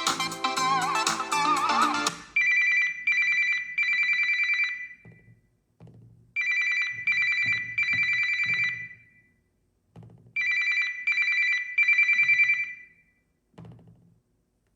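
Samsung Galaxy A55/A35 stock ringtones: a melodic ringtone ends about two seconds in, then a telephone-bell-style ringtone plays. The ringtone is a high electronic ring in groups of two short pulses and one longer one, repeated three times with short silences between.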